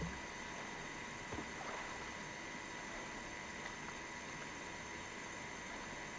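Faint water lapping and sloshing as a person steps down into a small tiled immersion pool (mikveh), over a steady room hum and hiss.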